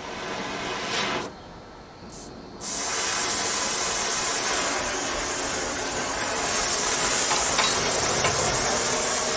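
Gas torch: a short pop about two seconds in as it lights, then the flame hissing steadily.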